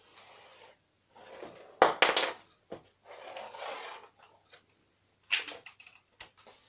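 Long strips of Lego bricks sliding and scraping across a wooden floor, with sharp clicks and knocks of plastic against wood. The loudest knocks come about two seconds in, and a few more come near the end.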